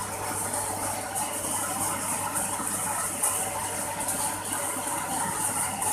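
Electric vertical grain dryer running, with a steady rattling, rushing noise over a constant low hum.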